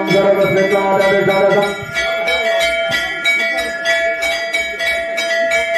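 Temple bell rung rapidly and without a break, several strikes a second, with a steady ringing tone. Voices are heard over it for the first two seconds.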